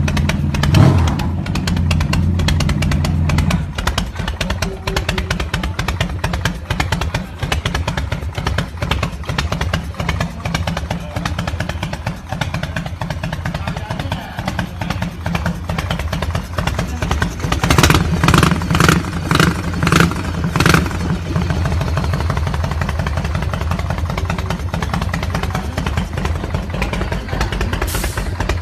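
Motorcycle engine running at idle with a deep exhaust rumble. A quick run of about six throttle blips comes about eighteen seconds in, and one more near the end.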